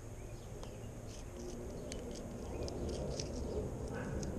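Faint scattered ticks and crackles of a fillet knife cutting through a bluefish's scales along the backbone, over a steady low rumble from the chest-worn camera rubbing against the body.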